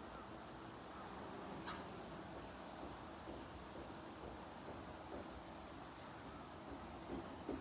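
Faint outdoor background noise with a few short, high bird chirps scattered through it, and a couple of small knocks near the end.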